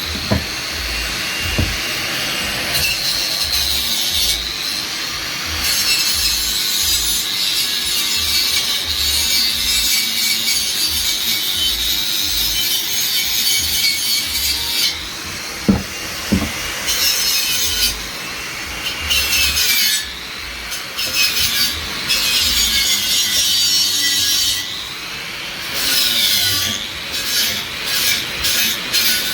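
Angle grinder grinding down fresh welds on a steel exhaust pipe. Its high whine sags as the disc bites and picks back up, with a few short stops near the end where it spins down and is brought back up.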